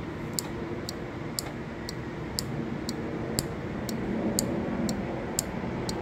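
Relay board of a DIY wave-maker controller clicking about twice a second as it switches an aquarium pump on and off to make waves in the tank, over a steady low hum.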